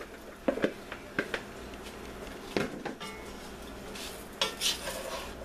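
Raw potato chunks being tipped from a bowl into a soup pot and pushed around with a wooden spoon: a few separate knocks and clatters against the pot and bowl.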